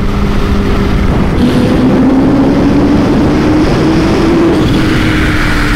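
Kawasaki Ninja H2's supercharged inline-four under hard acceleration at highway speed, with heavy wind rush. The engine note steps up about a second in, climbs gradually as the power builds, and eases off slightly near the end.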